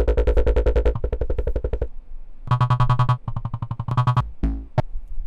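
Make Noise 0-Coast synthesizer voice, sequenced by a 0-CTRL, playing fast repeated notes while its step pads are pressed one after another. Each held step repeats its own pitch at its own clock rate, in short blocks with brief gaps between presses, and a higher-pitched block comes about halfway through.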